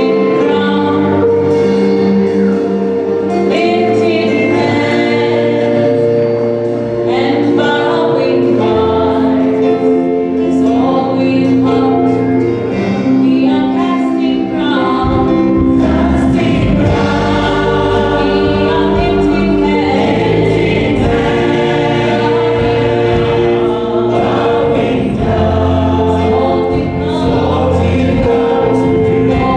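Choir singing a gospel worship song over held instrumental chords, with low bass notes joining about seven seconds in.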